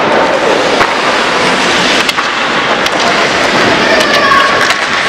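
Ice hockey play in an echoing indoor rink: skates scraping the ice, with sharp clacks of sticks and puck now and then. A voice calls out near the end.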